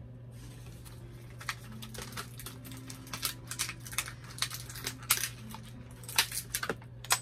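Plastic and cardboard toy packaging being handled, crinkling and crackling in a run of sharp clicks that grows busier after the first second or so, over a steady low hum.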